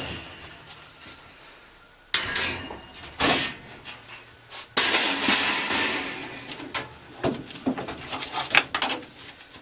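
Sheet-metal clanks and clicks as a furnace's filter access is opened, with a longer scraping rustle about five seconds in as the old, dirty air filter is slid out of its slot.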